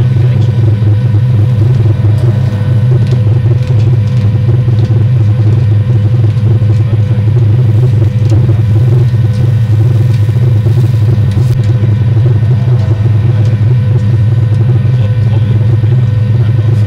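Steady, loud low rumble of motorway traffic crossing the Europabrücke, unchanging throughout.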